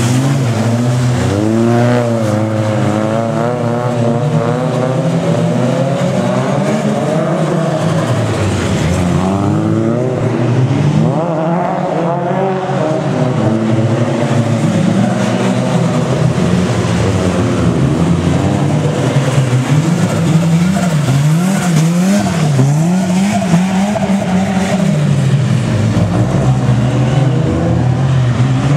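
Turbocharged Toyota AE86 twin-cam engine revving hard and rising and falling over and over as the car drifts, with the revs swinging quickly up and down in short bursts about two-thirds of the way through. A second car's engine runs at the same time.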